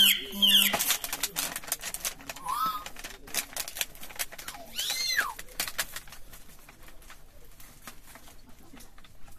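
Plastic packaging and bubble wrap crinkling and rustling as a boxed item is handled and slid into a plastic sleeve, loudest in the first second. Two short chirps cut through, one about two and a half seconds in and one near five seconds.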